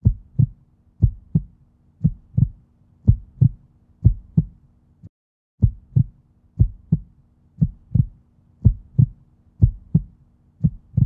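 Heartbeat sound effect: a steady lub-dub double beat about once a second, with a brief pause about five seconds in.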